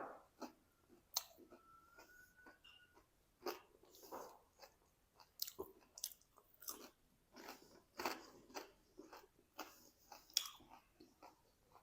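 Close-up chewing and biting of crispy fried potato and moong dal pakoras (mangodi): faint, irregular crunches as the fritter is bitten and chewed.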